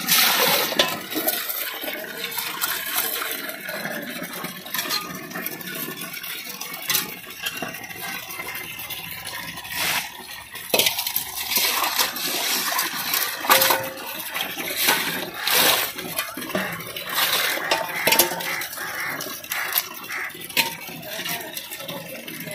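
Water sloshing and splashing as raw crabs are rinsed by hand in an aluminium pot, with crab shells clicking and knocking against the metal pot at irregular moments.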